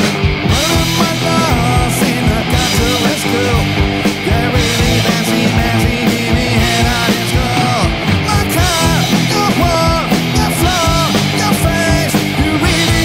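Rock song with a singer over a full band, loud and driving, with a steady beat.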